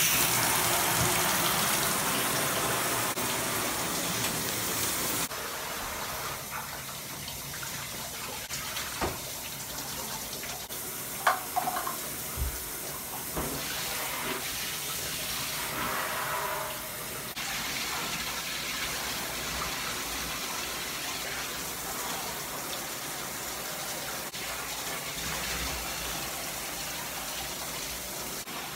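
Water running in a bathtub, first from the tub spout and then from a hand-held shower head into a plastic laundry detergent jug being rinsed out and emptied. The running is louder for the first five seconds or so and steadier after, with a few short knocks near the middle.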